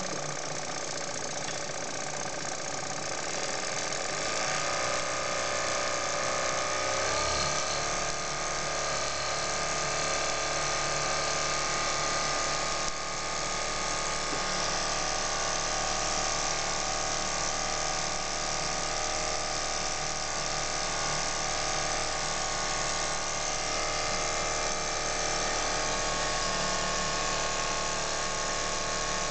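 Small single-cylinder brass model steam engine running fast, a steady mechanical whirr over a steady hiss. It picks up speed over the first several seconds, its pitch rising, then runs on at an even speed.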